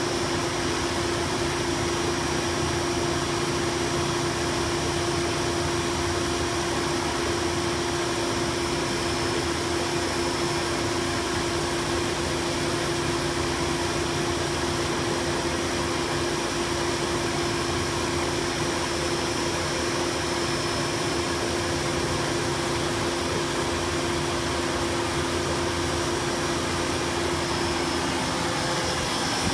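BF-100V drum fan running steadily with its misting nozzle ring spraying, an even rush of air and spray over a steady motor hum. One of the hum's tones drops out near the end.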